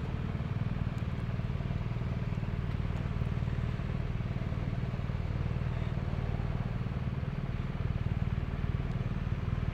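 Motorcycle engine running, a steady low rumble.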